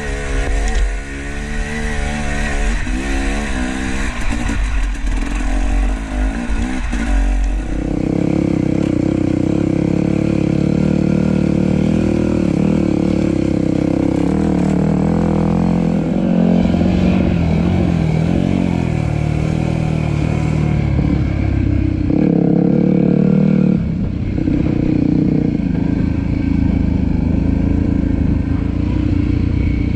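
Dirt bike engine running on a trail ride, its revs rising and falling as the rider works the throttle, and turning louder and heavier from about eight seconds in.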